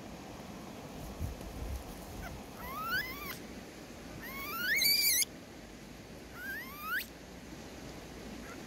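Baby leaf monkeys squealing: three high, upward-sliding cries, the middle one longest and loudest.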